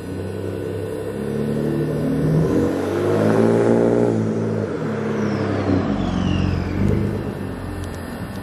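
A 2014 Ford F-150 with a 3.5-litre twin-turbo EcoBoost V6 and an aftermarket exhaust driving past. The engine note grows louder as the truck approaches and is loudest about four seconds in, then drops in pitch and fades as the truck drives away.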